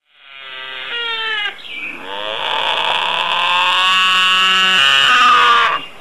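Binturong (bearcat) calling: a few short, wavering calls that fall in pitch, then one long drawn-out call that cuts off suddenly near the end.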